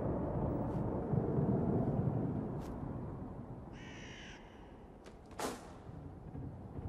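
A single crow caw about four seconds in, over a low rumble that fades away during the first few seconds. A brief sharp swish follows about a second and a half later.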